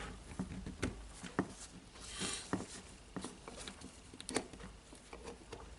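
Scattered light clicks and taps of hard plastic parts being handled as a trigger switch is pressed back into a cordless rotary hammer's plastic housing, with a short rustle about two seconds in.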